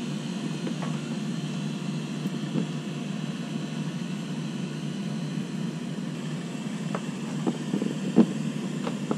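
Steady low background drone, with a few light taps and knocks of a through-hull fitting against the plastic boat hull near the end, the sharpest about eight seconds in.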